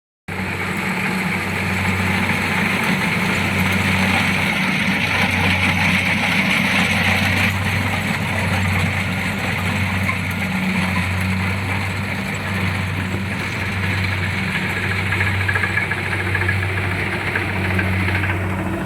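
Kubota tracked mini combine harvester running: a steady low diesel engine hum with a high hiss of machinery over it. The hiss drops away shortly before the end while the engine keeps running.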